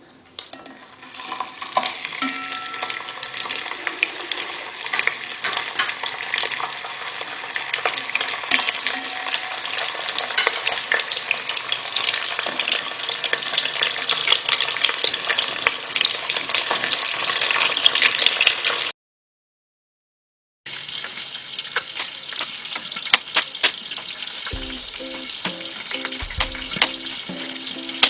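Food frying in hot oil: a dense, steady sizzle with many small crackles and pops, growing louder over the first two thirds. It cuts out abruptly to silence for about two seconds, then resumes, with soft music joining near the end.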